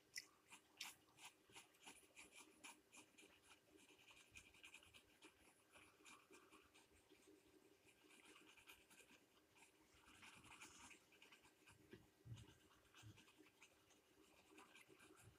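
Pencil scratching on paper in quick, repeated shading strokes, faint, with denser runs of strokes here and there.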